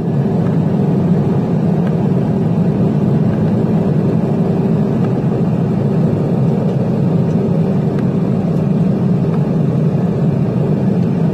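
Turboprop airliner's engines and propellers heard from inside the passenger cabin while the aircraft moves along the ground: a steady, loud, low drone with a faint constant tone above it.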